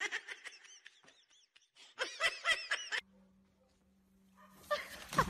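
Rottweiler whining in short, high, rising-and-falling whimpers: a quick run at the very start and another about two seconds in.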